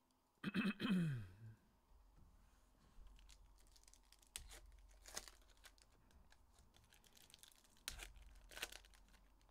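Foil trading-card packs being torn open and their wrappers crinkled by hand, in scattered tears and rustles. Near the start, a short vocal hum falling in pitch.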